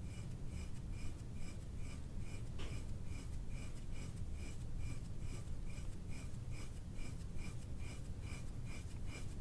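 Hands rubbing and kneading skin and muscle on a person's back, a soft rhythmic rubbing about twice a second over a steady low hum.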